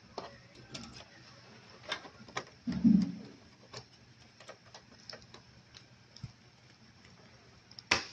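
Scattered light clicks and taps of an opened projector's circuit boards, plastic connectors and sheet-metal chassis being handled, with one louder dull thump about three seconds in and two sharp clicks near the end.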